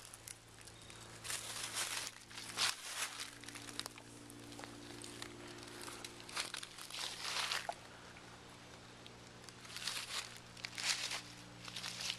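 Footsteps crunching through dry fallen leaves, coming unevenly about once a second.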